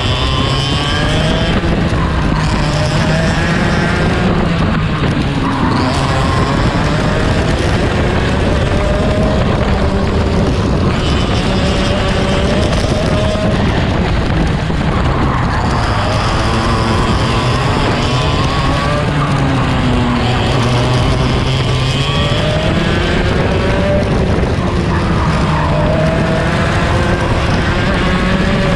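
Two-stroke racing kart engine at racing revs, heard on board the kart: the pitch climbs steadily through each acceleration and drops back when the driver lifts for a corner, over and over.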